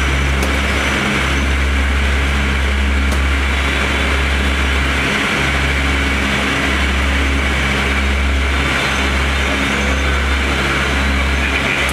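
Lockheed L-188 Electra's four Allison 501 turboprop engines running steadily in flight, heard from inside the cockpit: a loud, even propeller drone with steady low hums in it.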